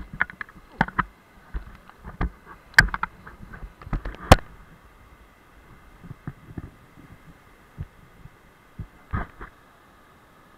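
Irregular knocks and thumps, many in the first five seconds and only a few after, over a faint steady hiss.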